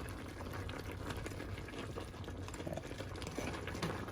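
Pot of pork hock kare-kare, a thick peanut stew, bubbling steadily on lowered heat with many small pops.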